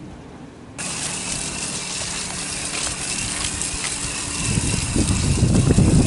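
Water spray from a hose or washer wand starts suddenly about a second in, washing the heat pump's condenser coil with a steady hiss. From about four and a half seconds it gets louder and heavier, with rough splashing as the water hits the coil and the pavement.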